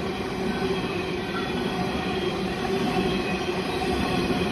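Empty freight train rolling past at speed, a steady rumble with a few steady tones over it, slowly growing louder toward the end.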